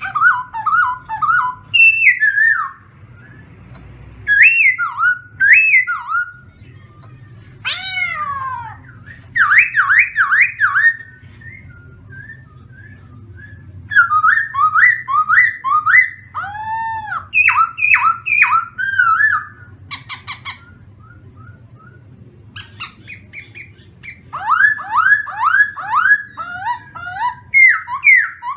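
A caged khướu mun laughingthrush singing: loud, clear whistled phrases of quickly repeated sweeping notes, in bursts of one to four seconds with short pauses between.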